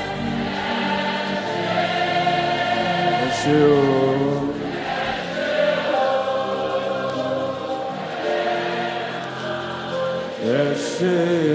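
Slow gospel worship music, with a group of voices singing long held notes.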